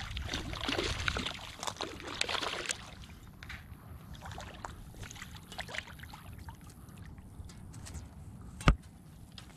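Irregular clicks and rustling, busiest in the first three seconds and then sparser, with one sharp knock near the end.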